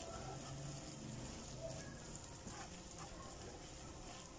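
Wooden spatula stirring a thick, creamy chicken filling in a metal pan: faint scraping and soft knocks.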